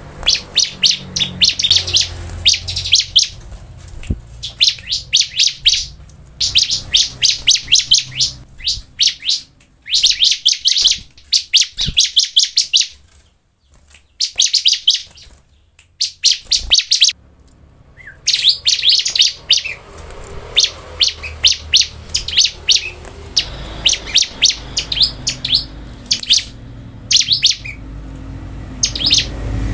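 Bar-winged prinia (ciblek) singing: rapid bursts of high, sharp repeated notes, each burst about a second long with short gaps between. The singing falls quieter for a few seconds near the middle.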